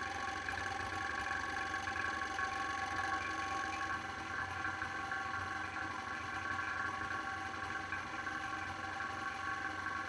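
A clay pug mill's motor running with a steady hum of several held tones.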